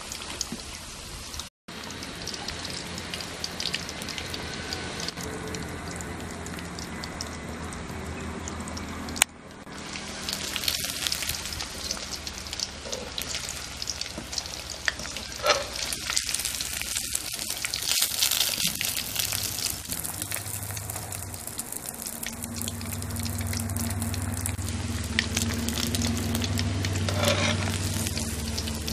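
Fish pieces deep-frying in hot oil in a kadai: a dense, steady sizzle full of small crackling pops. A low steady hum joins under it past the two-thirds mark.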